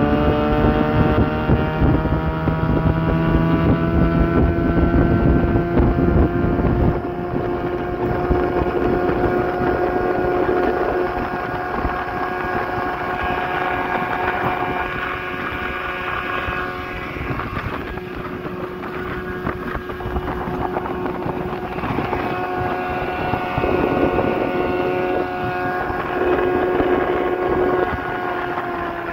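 1987 Evinrude 8 hp two-stroke twin-cylinder outboard running at full throttle, a steady high engine note. A low rushing noise under it drops away about seven seconds in.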